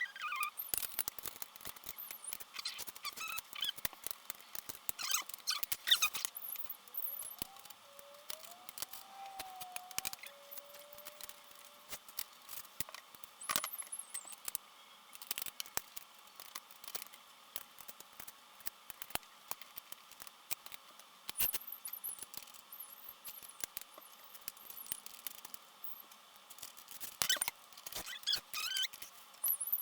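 Parts being handled and fitted by hand during assembly: irregular clicks, taps and scrapes, with a short wavering squeak about eight to eleven seconds in.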